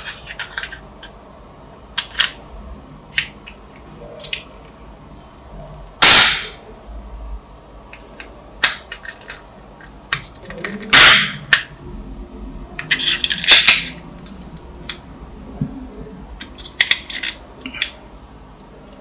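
Hard plastic parts of a model car clicking, knocking and snapping as they are handled and pressed apart and together, with loud sharp cracks about six and eleven seconds in and a quick cluster of knocks just after.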